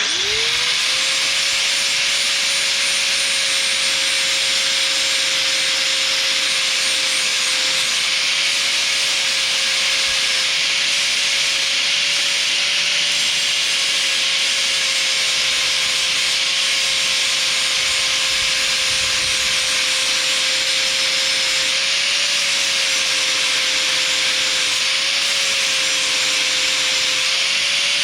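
4.5-inch angle grinder with a flap wheel spinning up at the start, then whining steadily while it grinds the edge of an electric mower blade to sharpen it. The grinding hiss runs under the whine, and the pitch sags slightly a few times as the wheel is pressed onto the steel.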